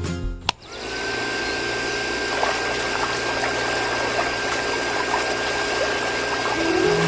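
A switch clicks about half a second in, then a small DIY electric water pump runs with a steady high whine and low hum while its jet of water pours and splashes into a miniature irrigation channel. Music comes back in near the end.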